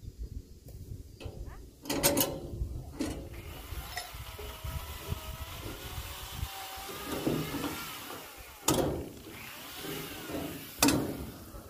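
Chainsaw running at a distance, its pitch rising and falling, with several sharp knocks close by.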